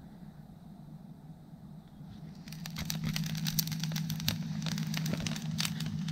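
Small campfire of dry twigs and sticks crackling in a stone fire ring, with dense, irregular snaps starting about two and a half seconds in after a quiet stretch.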